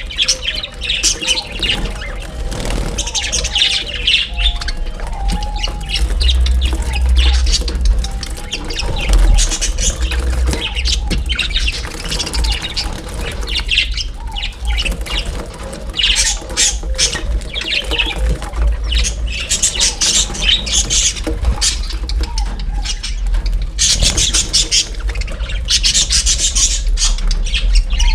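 A large flock of budgerigars (budgies) chattering, warbling and squawking together nonstop, many birds calling at once, over a steady low hum.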